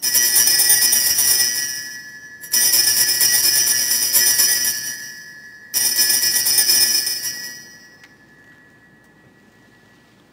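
Altar bells (a hand-held cluster of Sanctus bells) shaken three times, each ring starting sharply and fading over about two seconds. They mark the elevation of the consecrated host at Mass.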